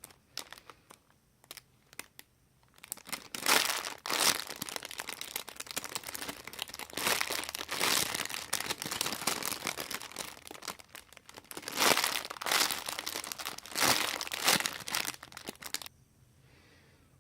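Plastic crinkling and rustling as squishy toys in their plastic bags are handled: a few light clicks at first, then a long stretch of dense crinkling with louder surges, stopping suddenly near the end.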